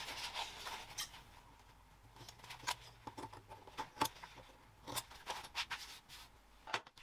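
Fabric scissors making several separate sharp snips as the seam allowance is trimmed close to the corners of a sewn fabric piece, to cut down bulk before turning it right side out.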